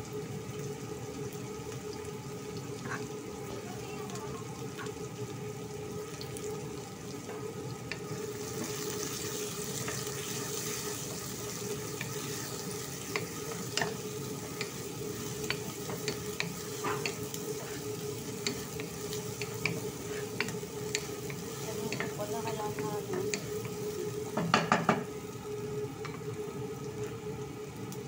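Chopped onion and green chillies sizzling in hot oil in a non-stick pot, stirred with a wooden spatula that scrapes and taps against the pan; a steady hum runs underneath, with a louder knock near the end.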